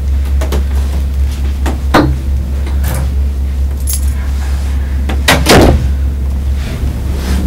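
Keys jangling and a door being handled: a series of clicks and knocks, the loudest rattling cluster about five and a half seconds in, over a steady low hum.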